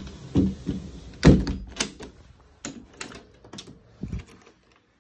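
Sliding door and its lock being worked by hand: a couple of loud knocks in the first second and a half, then a run of lighter clicks and rattles, with a dull thud about four seconds in.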